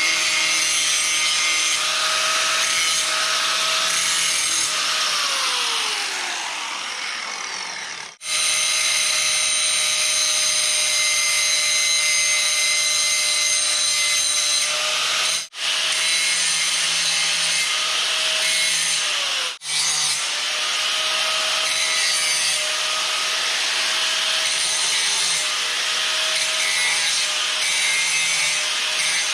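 Angle grinder grinding steel, cleaning mill scale off the top of the joint before welding. It runs at a steady whine, winds down about six seconds in, starts up again at about eight seconds, and cuts out twice for a moment.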